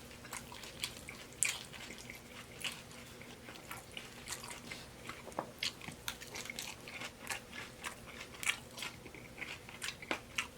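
A person chewing and biting a mouthful of taco salad with oven-baked crisp shells: irregular crunches and mouth clicks, about one or two a second.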